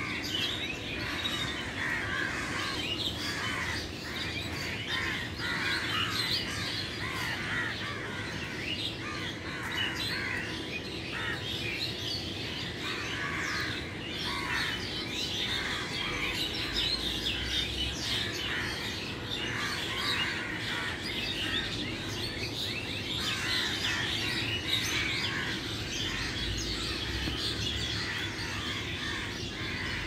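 A dense chorus of many birds in the trees, chirping and twittering at once with no break, over a steady low hum.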